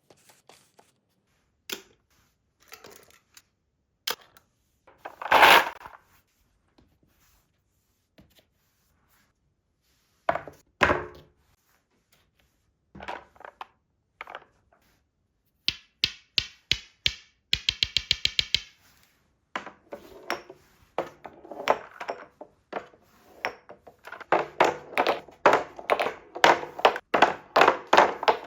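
Glass marbles rolling and dropping through a HABA wooden marble run, clicking and clacking on the wooden track pieces. The knocks are sparse at first with a few louder clatters. About 17 seconds in comes a fast, even run of clicks. From about 20 seconds the clacking turns dense and busy.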